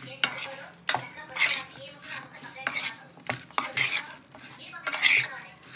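Raw chicken pieces being mixed by hand with spice marinade in a steel pot, with irregular scrapes and knocks against the pot.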